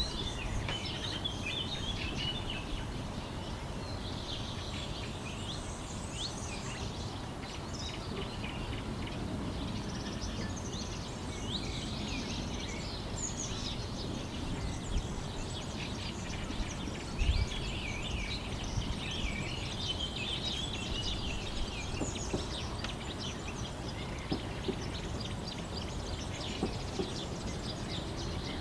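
A chorus of songbirds chirping and trilling throughout, over a steady low rumble of background noise, with one brief low thump about 17 seconds in.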